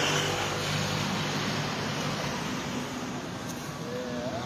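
Steady background noise with a faint low motor hum that fades over the first few seconds.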